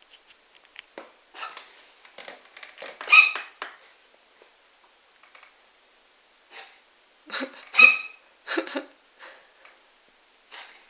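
Cat sneezing several times: one sneeze about three seconds in and a quick run of three about two-thirds of the way through, with fainter short sneezes and snuffles between.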